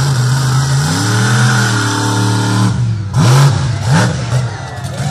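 Monster truck's V8 engine running, then revving hard: its pitch climbs and holds as the truck accelerates into a jump. A string of short, quick revs follows as it goes airborne over crushed cars.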